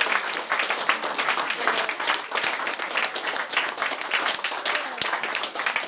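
A small audience applauding, with individual hand claps standing out in the dense clapping.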